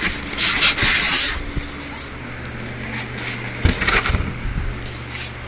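White foam packing rubbing and scraping against a cardboard box as the top foam piece is worked loose and lifted out, loudest in the first second or so, with another short scrape near the end.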